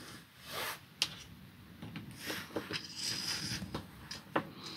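Handling noises from a camper-van blackout roller blind's plastic end bracket being fitted and screwed down: a few sharp clicks with scraping and rustling between them, and a screwdriver turning a small screw.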